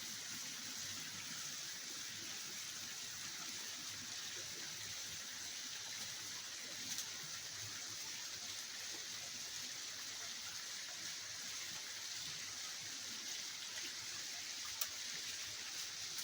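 Waterfall rushing steadily, an even hiss of falling water, with a couple of small clicks about seven and fifteen seconds in.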